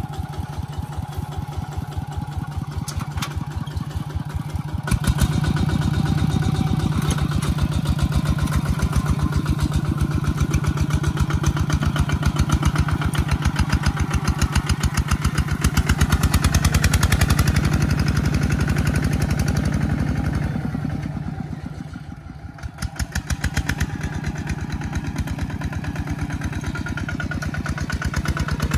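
Single-cylinder diesel engine of a Kubota ZT155 Plus walking tractor chugging steadily under load while pulling a disc plough. It gets louder about five seconds in, fades briefly about two-thirds of the way through, then picks up again.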